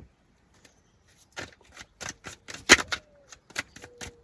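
Tarot cards being handled on a table: a run of irregular sharp clicks and taps, the loudest about two and a half seconds in.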